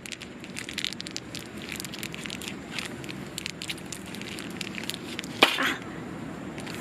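Wood campfire crackling, with irregular sharp pops and a single louder knock about five and a half seconds in.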